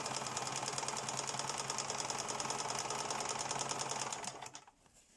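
Household sewing machine stitching at a steady speed, with a fast, even rhythm of needle strokes over a low motor hum. It is sewing a test seam to check the upper thread tension, and it stops about four seconds in.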